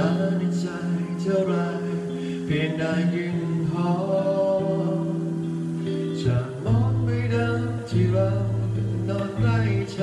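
A slow pop ballad: a man singing into a microphone over acoustic guitar accompaniment, with held bass notes underneath.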